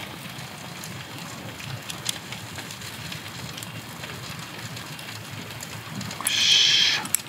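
Food sizzling on a small tabletop grill, a steady rain-like crackle with scattered faint pops. About six seconds in, a loud hiss lasts under a second.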